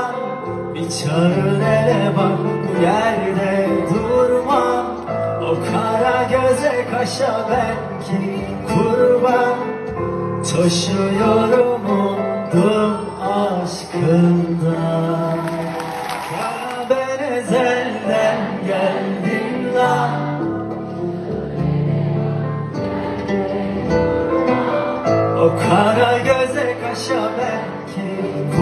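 A Turkish pop song performed live by a band, with a male lead singer singing over the instruments in an arena.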